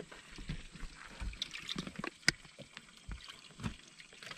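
Scattered knocks and clicks of someone handling a bass boat's livewell and deck fittings, with one sharp click a little over two seconds in. Water in the livewell begins to slosh near the end.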